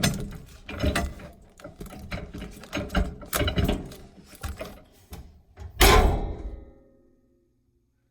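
Irregular clicking and rattling handling noises with a few sharp knocks, the loudest about six seconds in. They stop abruptly about seven seconds in.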